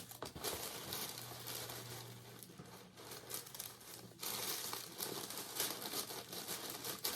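Wrapping paper in a shoebox being handled and unfolded by hand, rustling and crinkling continuously, louder in the second half.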